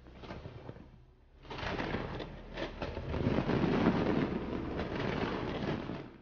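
Fireworks bursting and crackling. After a quieter first second of scattered pops, a dense volley of bangs and crackle starts about a second and a half in.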